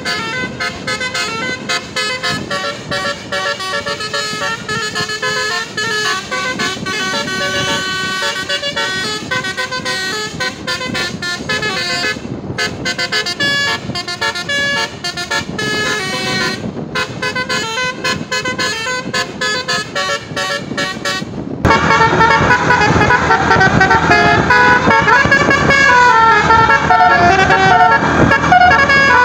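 Telolet basuri bus horn, a multi-trumpet musical horn, playing a tune of held notes changing step by step, with a few short breaks. About three-quarters through it cuts suddenly to a louder horn melody.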